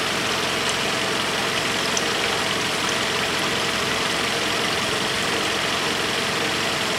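A Toyota RAV4's 2.0-litre four-cylinder petrol engine idling steadily, warmed up, heard from underneath the car.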